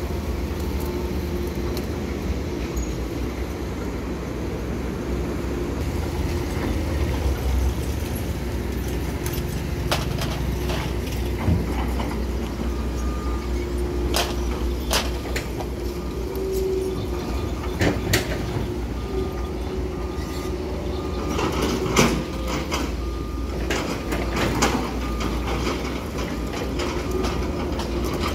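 Hydraulic excavators' diesel engines running under load, a steady low rumble, with scattered clanks and knocks from the digging. A faint repeated beeping comes in about halfway through.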